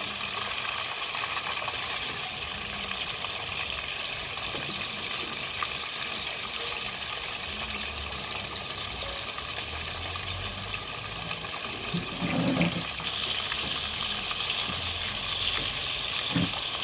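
Marinated fish pieces frying in hot oil in a pan: a steady sizzling hiss, with a couple of soft knocks near the end.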